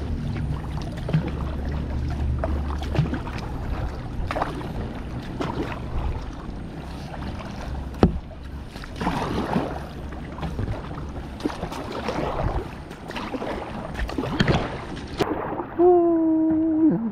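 Kayak paddling: paddle strokes splashing in the water, with scattered sharp knocks. Near the end, after a sudden change in the sound, a held pitched note comes in.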